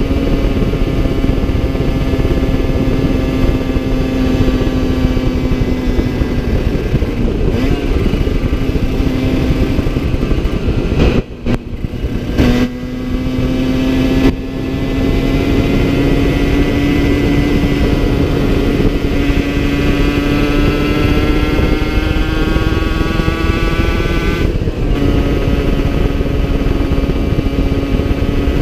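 Two-stroke 70cc-kitted Yamaha TZR50 engine with a Polini CP21 carb and Technigas exhaust running under way over heavy wind rush; the top end is worn and down on power. The engine holds a steady pitch, drops off briefly about eleven seconds in as the throttle is closed for a gear change, then climbs steadily for about ten seconds as the bike accelerates, and breaks again near the end for another change.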